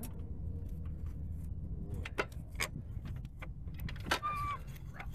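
Hydraulic floor jack being worked under a car's side sill: a few sharp metallic clicks and knocks, with a short squeak about four seconds in, over a low steady hum.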